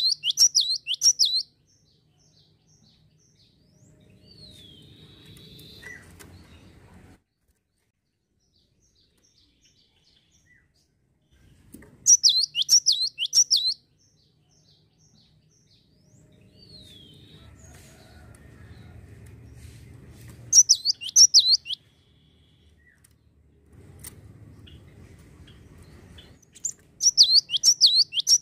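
Cinereous tit (gelatik wingko) singing: four bursts of rapid, sharp repeated notes, each lasting one to two seconds, several seconds apart. A faint low rumble sounds in the gaps between bursts.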